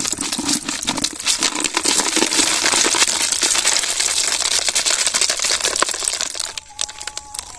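A net trap being shaken out over a plastic bucket: a dense, rapid clatter of freshwater snail shells tumbling into the bucket, mixed with the mesh rustling. It stops about six and a half seconds in.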